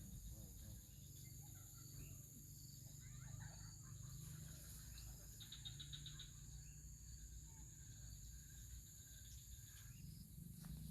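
Faint insect chorus: a steady high-pitched drone, with a short, rapid chirping trill about five and a half seconds in and scattered faint bird-like chirps, over a low rumble.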